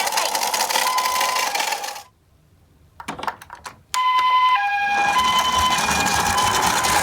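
Ambulance siren sounding in two alternating tones over a loud, rattling rolling noise. Both stop abruptly about two seconds in. A few clicks follow, then siren and rattle start again about four seconds in.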